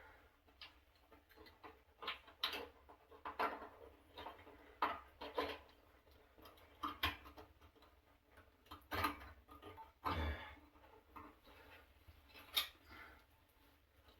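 Irregular clicks, taps and short scrapes of hands and tools handling the wiring and thermostat parts of an electric water heater, with a dull knock about ten seconds in.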